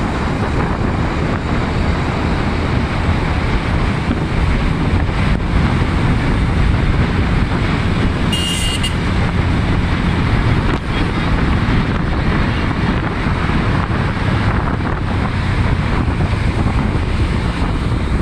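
Wind buffeting the microphone on a moving motorbike, with steady engine and road noise underneath. A brief high beep sounds about eight seconds in.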